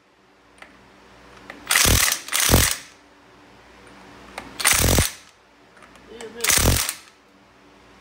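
Handheld power wrench run in four short bursts, each under half a second, spinning down the castle nut on a front wheel hub's spindle.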